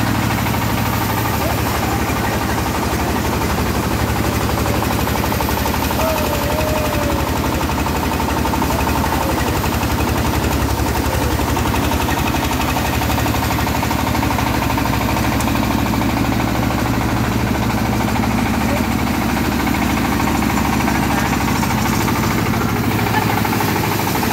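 Paddy threshing machine running steadily, its beater drum driven by belts from a small single-cylinder diesel engine with a fast, even pounding beat, as rice stalks are fed in and threshed.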